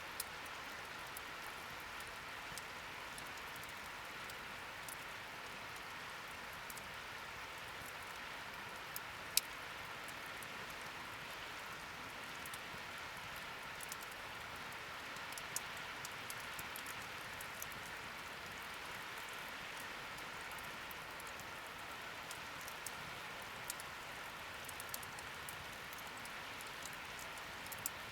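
Wood fire burning in a fire pit: a steady hiss with scattered crackles and pops, one sharp pop about nine seconds in.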